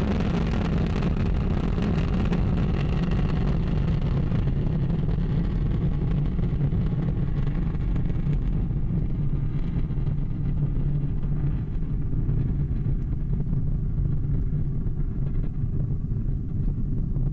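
Ariane 5 ECA rocket's two solid boosters and Vulcain main engine roaring in a steady deep rumble during the climb after liftoff. The higher crackle fades from about halfway through, leaving mostly the low rumble as the rocket climbs away.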